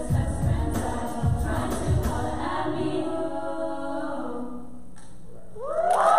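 Women's choir singing over a steady low beat of about two to three thumps a second, then holding a final chord that fades away. Near the end, rising whoops break out and the sound grows louder.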